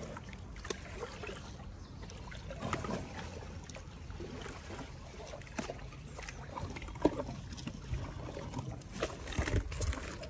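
Water sloshing, splashing and dripping around a hippopotamus moving in its pool. Irregular short wet splashes and drips run throughout, coming more often near the end.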